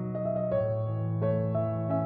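Calm background music on a piano-like keyboard: a slow melody of single notes, changing about every half second, over held bass notes.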